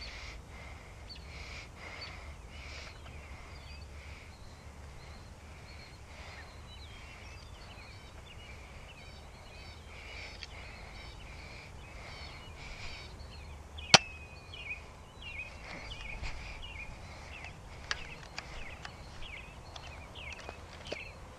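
Outdoor ambience of birds chirping and calling, over a low steady rumble. A single sharp click stands out about two-thirds of the way through.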